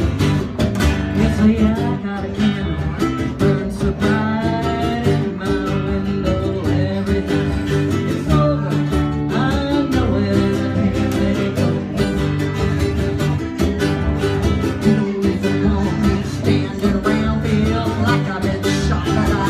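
Country-style music with guitar and a steady beat, and a voice singing a melody over it.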